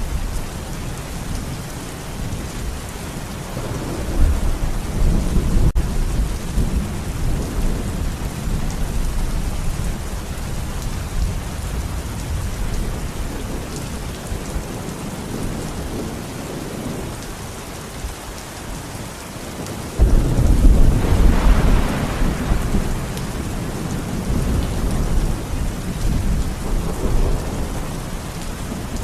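Steady heavy rain with thunder: a rolling rumble about four seconds in, and a sudden loud clap about twenty seconds in that rumbles away over several seconds.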